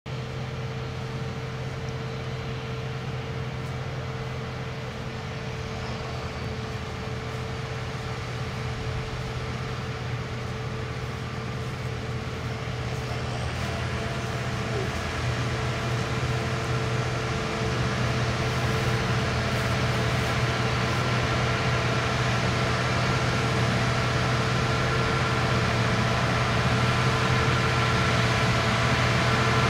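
CLAAS Lexion combine harvester cutting wheat, with a John Deere tractor and grain trailer alongside: a steady engine and threshing drone with a few held whining tones. It grows gradually louder as the machines come closer.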